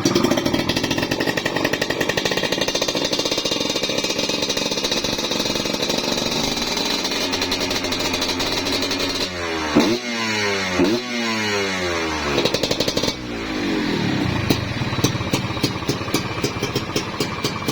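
Two-stroke Kawasaki Ninja KIPS engine in a GasGas dirt bike running, revved sharply twice about ten seconds in, each rev rising and dropping back, then settling to an even, pulsing idle.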